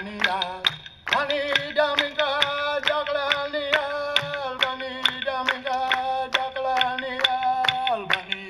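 Aboriginal welcome song: a single voice chanting in long held notes over a steady beat of sharp clicks, about three a second. The voice pauses briefly just before a second in and drops away near the end.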